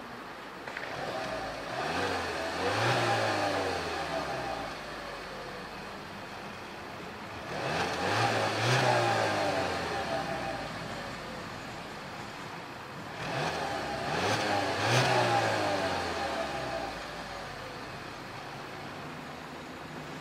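2012 Volkswagen Passat's TSI turbocharged petrol engine idling and revved three times, about six seconds apart. Each rev rises in pitch and then falls back to idle.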